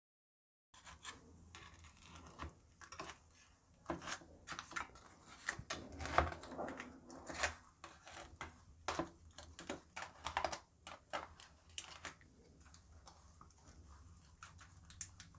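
Knife cutting a baked cake in an aluminium foil tray: irregular faint ticks and scrapes of the blade against the foil, busiest midway and thinning to a few soft taps near the end.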